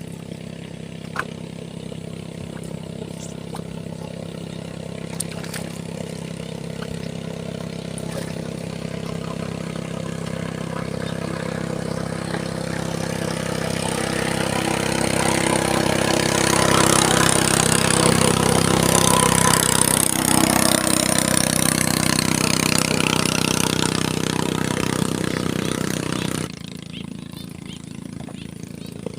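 An engine running steadily, growing louder to a peak about two-thirds of the way through, then easing and dropping off abruptly near the end.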